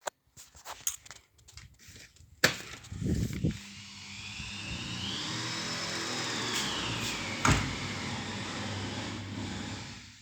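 Knocks and clatter of renovation work, then a power tool motor running steadily for about six seconds, its high whine rising and falling, with one sharp knock partway through.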